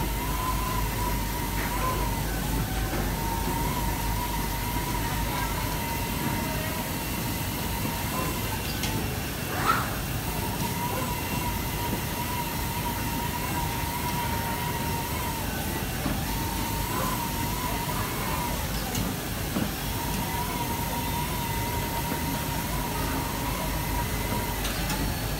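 FK Universal 8 automatic fabric cutting machine running as it cuts: a steady high-pitched whine that breaks off briefly every few seconds, over a constant machine and factory hum, with an occasional sharp click, the loudest about ten seconds in.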